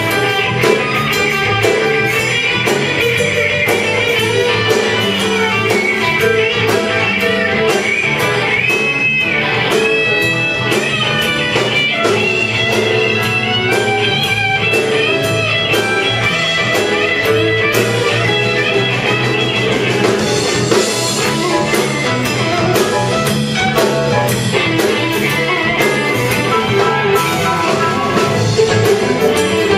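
Live band playing blues-rock: electric guitars over a drum kit and electric bass, with a lead guitar line bending notes about a third of the way in.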